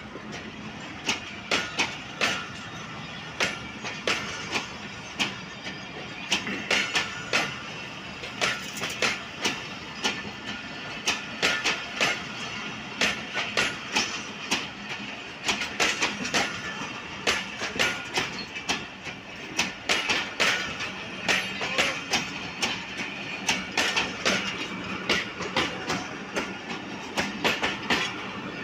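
Passenger train coaches passing at speed: the steel wheels clatter over the rail joints in a fast, steady clickety-clack, with click groups several times a second over the rush of the moving train.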